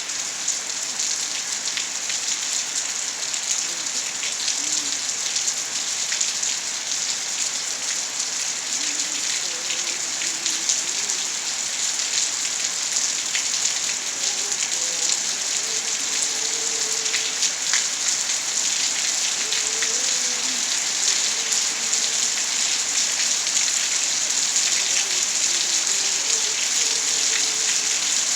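Steady rain pouring, a dense even hiss with many individual drops ticking on surfaces.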